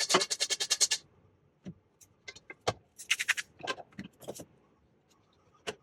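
Sharp clicks and rattles of small hard objects: a fast, even run of about a dozen clicks in the first second, a short rattle about three seconds in, and a few single clicks, the last near the end.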